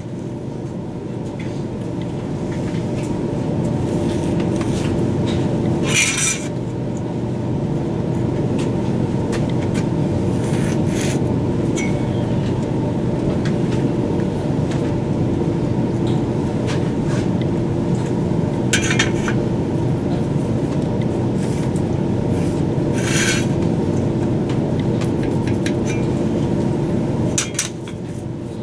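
A steady mechanical drone from workshop machinery, which drops away near the end. Over it come a few short scrapes as a pencil and steel square are drawn across the stone block.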